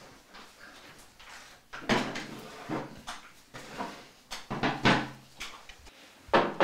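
A chair being moved and set down: a string of knocks and bumps after a quiet first second or so, the loudest just before the end.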